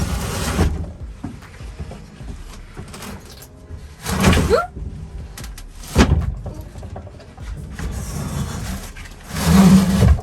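Bumps, scrapes and knocks of a wooden cabinet being manoeuvred out of a van's interior, with a short squeak about four and a half seconds in and a sharp knock about six seconds in.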